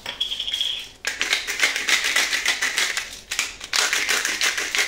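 Disposable black-pepper grinder twisted by hand, grinding peppercorns with a rapid dry crackle of fine clicks. It starts about a second in and comes in two runs, with a short pause about three seconds in.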